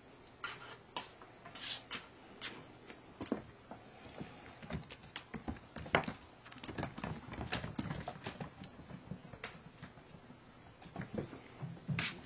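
Five-week-old kittens' paws and claws pattering and clicking on a hardwood floor as they scamper and pounce: irregular light taps and soft thumps, with one sharper tap about six seconds in.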